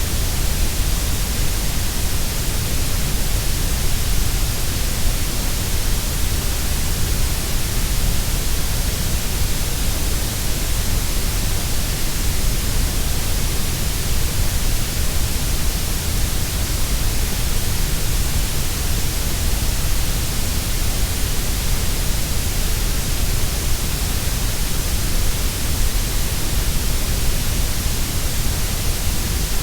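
Steady, unbroken grey noise: an even hiss with strong deep lows and high treble and a softer middle.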